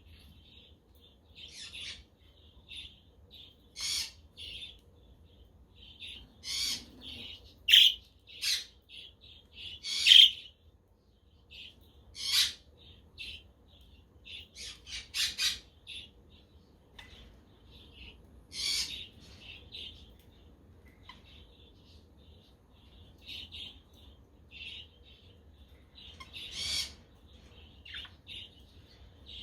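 A flock of budgerigars chirping and chattering: a steady stream of short chirps with louder, sharper calls every couple of seconds.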